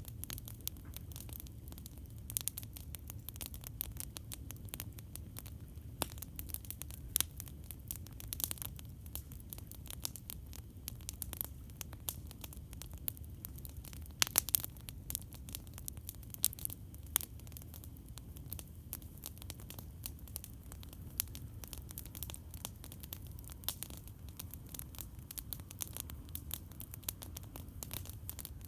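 Campfire crackling: irregular sharp pops and snaps over a steady low rumble, with a short burst of louder pops about halfway through.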